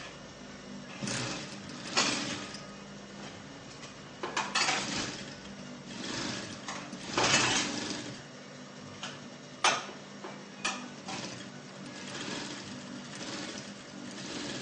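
Sewing machine stitching fabric in several short runs, stopping and starting, with a sharp click near the middle.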